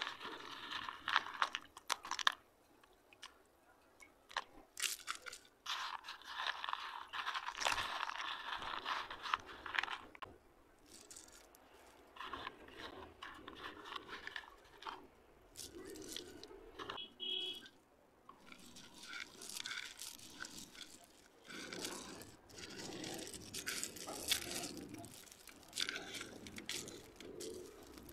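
Broken slate pencil pieces clicking, clattering and scraping against each other as handfuls are stirred in a bowl of wet clay and raked through a pile on concrete, in several spells of dense clicking.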